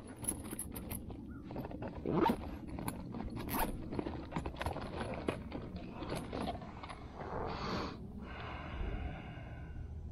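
Clicks, knocks and scraping of fishing gear being handled, with a rasping swish near the end, as a fish scale is got out and readied to weigh a freshly caught bass.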